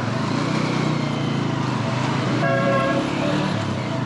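Honda 125 cc single-cylinder motorcycle engine running on the move, with a vehicle horn tooting once for about half a second, two and a half seconds in.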